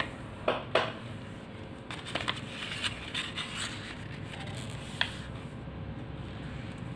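A strip of paper being folded and creased by hand on a tabletop: soft rustling and scraping of the paper. Several sharp clicks come through, two close together about half a second in and one about five seconds in.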